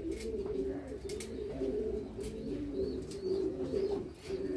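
Homing pigeons cooing, several birds overlapping in a steady low murmur, with a few short clicks and faint high chirps.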